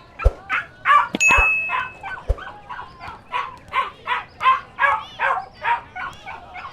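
Puppies yipping and barking in quick succession, short high-pitched calls about two to three a second throughout, with a few sharp knocks in the first couple of seconds.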